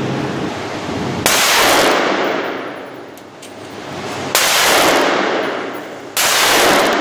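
Three single gunshots on an indoor shooting range, about a second in, about four seconds in and near the end, each with a long echoing decay.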